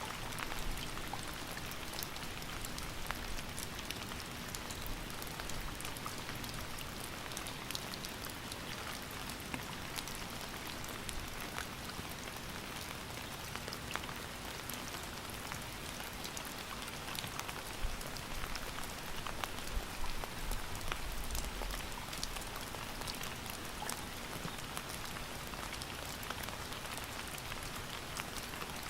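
Steady rain falling, a dense even hiss with many small drops pattering on a surface.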